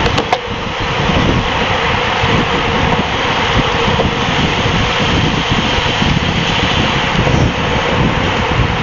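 Wind rushing and buffeting over the microphone of a bicycle-mounted camera riding at race speed in a pack of road cyclists: a steady loud rush with heavy low rumble, and a couple of sharp clicks just after the start.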